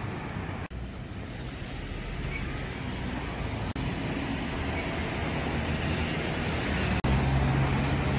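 City street traffic: a steady wash of passing cars and engines with tyre noise, broken by brief dropouts at edits. Near the end a car passes close and louder, its engine drone standing out.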